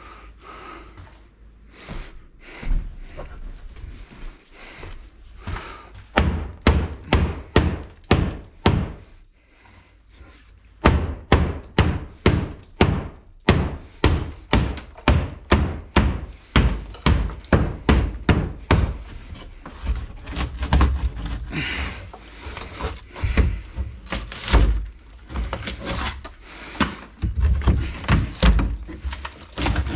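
Hammer blows knocking out part of a wall and its framing during demolition: runs of sharp thuds and knocks, about two to three a second, with short pauses between runs.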